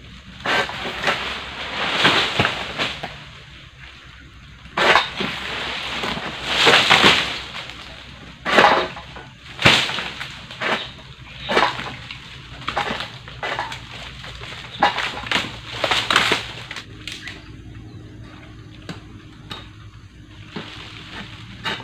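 Palm King Pro egrek, a long-pole sickle, hooking and cutting oil palm fronds: about a dozen irregular rustling, crunching scrapes of blade and stiff leaves. The scrapes come thick for the first two thirds, then thin out to an occasional one.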